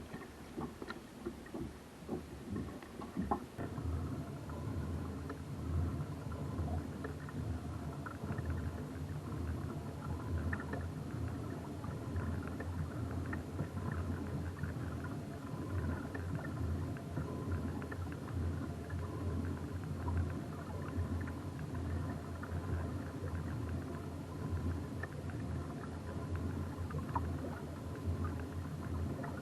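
Steady low rumble of a boat moving on the water, starting about three and a half seconds in after a few knocks and clicks.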